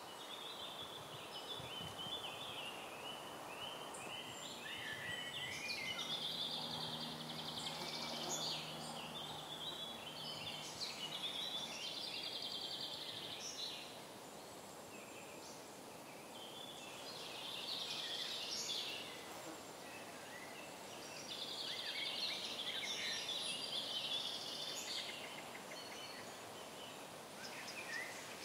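Woodland songbirds singing, several overlapping songs of quick trills and chirps coming in bursts, over a steady background hiss.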